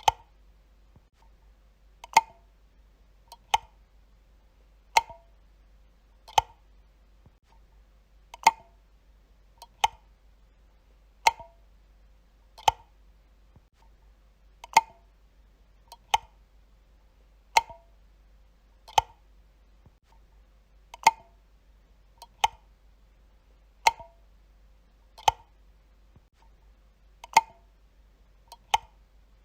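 Wall light switch flicked on and off over and over: about twenty sharp clicks, roughly one every second and a half, some louder than others.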